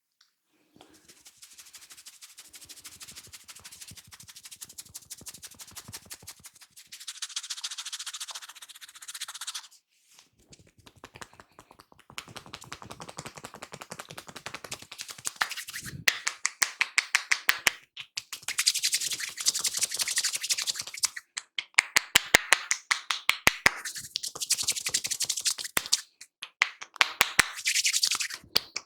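Barber's hands working a head massage: rapid tapping and clicking of fingers on the scalp, alternating with rubbing and scratching through the hair, in stretches of a few seconds with short pauses, louder in the second half.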